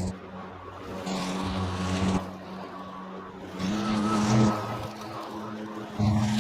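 GreenWorks 40V cordless electric lawnmower running: a steady motor-and-blade hum that rises and falls in loudness several times as it mows, not very loud for a mower.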